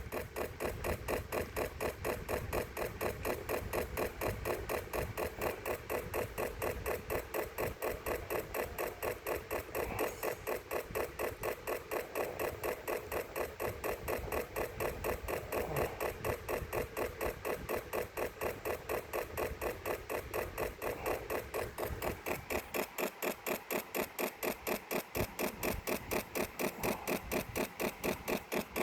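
A computer making a strange, steady, rhythmic clicking, about two to three clicks a second, going on without a break.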